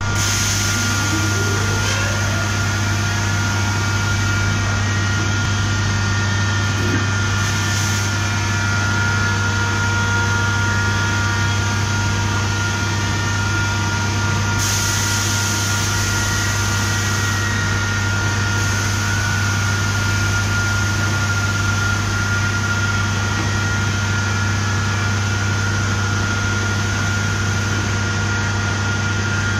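Big-bag filling machine running as it fills a ton bag with powder: a steady machine hum, with a constant low hum under a steady higher whine.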